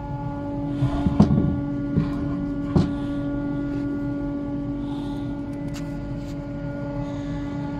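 A workshop machine running with a steady, even hum. A few sharp knocks come about a second in and again near the three-second mark.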